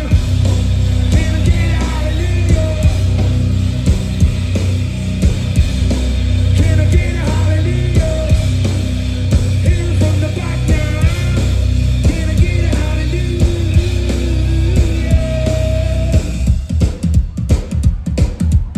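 A live post-punk band plays loud through a festival PA: sung lead vocals over heavy bass, guitar and drums. About sixteen seconds in the singing stops and the band drops into a sparser instrumental of evenly spaced hits.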